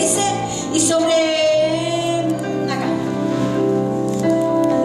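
Church worship music: a voice singing long, held notes with vibrato over sustained chords.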